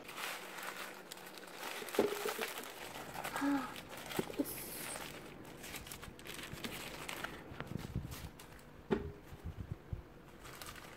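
Butter paper crinkling and rustling as it is unwrapped by hand, in irregular crackles, with a few light knocks.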